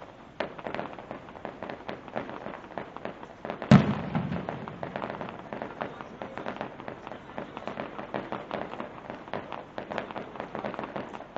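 Fireworks going off: a rapid run of crackles and pops, with one loud boom a little under four seconds in.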